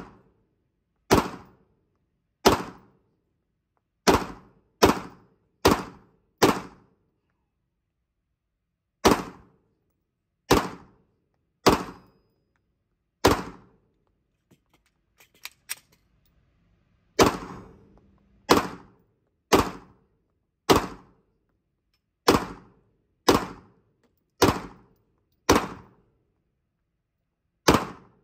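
Glock 19X 9 mm pistol fired in single shots at an uneven pace, each shot ringing briefly in the indoor range, about nineteen shots in all. Around halfway the firing pauses for about three seconds and a few small clicks of a magazine change are heard before shooting resumes.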